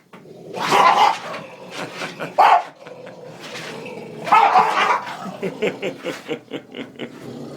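Bulldog barking at a lawnmower in a few loud bursts, followed by a run of short, quick sounds.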